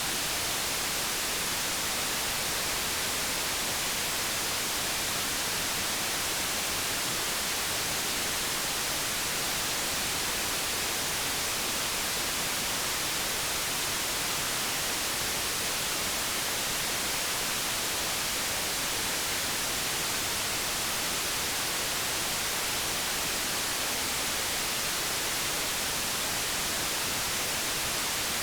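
Synthetic white noise: a steady, even hiss, brightest in the high end, that never changes.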